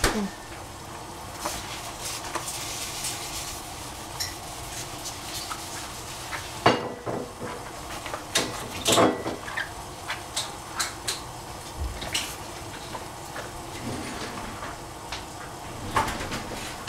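Scattered clinks and knocks of metal pots, lids and dishes being handled in a kitchen, bunched around the middle and again near the end, over a steady background hiss.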